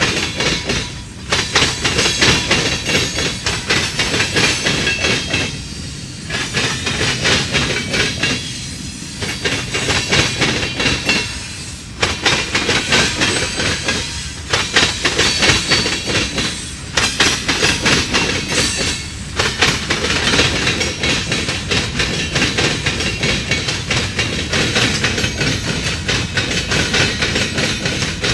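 Freight tank cars' wheels clattering across a railroad diamond crossing in a steady stream of clacks. The clatter eases briefly every two to three seconds as the gaps between cars pass.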